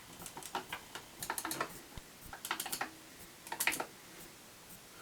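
Light, sharp clicks and taps in three quick clusters about a second apart, like keys being typed.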